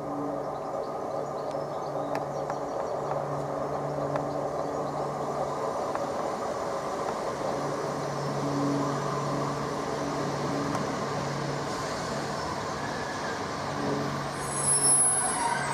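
Diesel engines of a Class 150 Sprinter diesel multiple unit running as the train moves slowly along the platform: a steady low drone, growing louder near the end.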